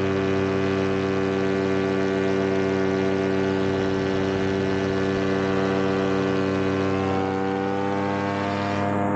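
Paramotor engine and propeller running steadily at cruise throttle, a constant drone heard in flight. A higher hiss rides over it and cuts off near the end.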